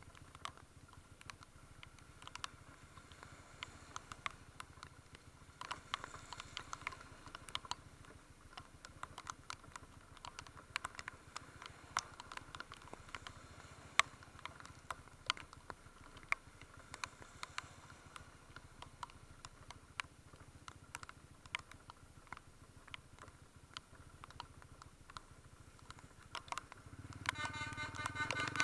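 Raindrops ticking irregularly against the camera or its housing, a few sharp ticks a second, over a faint low rumble; a louder sound with a steady pitch builds near the end.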